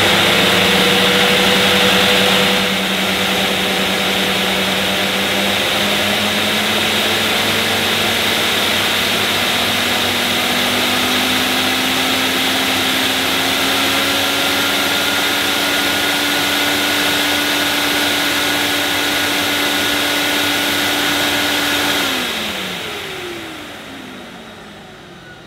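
Hoover Galaxy 1100SE cylinder vacuum cleaner's 1100-watt suction motor running with no hose fitted, after being switched on just before. It drops a little about two seconds in, and its hum then climbs slowly in pitch as the suction-control dial is turned. About 22 s in it is switched off and winds down with a falling whine. To the owner it sounds like a Hoover Compact and okay, the sound of a healthy motor.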